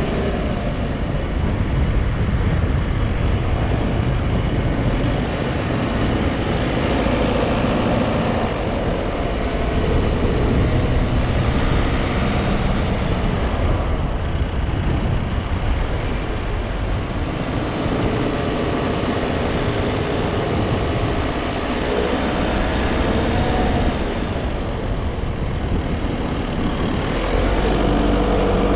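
Car driving on a paved road: steady engine and tyre noise, the engine note shifting up and down as the car slows and accelerates through the bends. The engine gets louder and deeper near the end.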